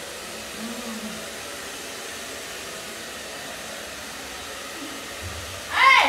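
Handheld electric hair dryer running steadily, blowing air. Near the end a loud, high-pitched voice cries out over it.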